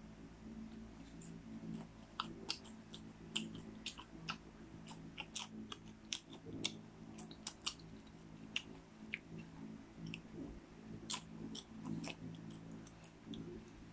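Popcorn being chewed: irregular crisp crunches and crackles, several a second.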